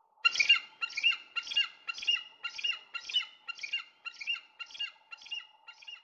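Wedge-tailed eaglet chicks calling from the nest: a run of about a dozen short calls, about two a second, growing fainter toward the end.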